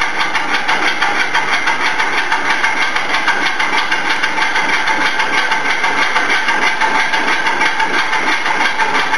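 Model of the 1889 Lilienthal No. 137 stationary steam engine running steadily, with an even, fast hissing beat of about four to five pulses a second.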